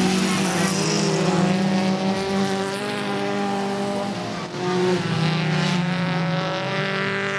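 Engines of old hatchback race cars running hard on a dirt stubble-field track, their pitch rising and falling as the cars accelerate and pass.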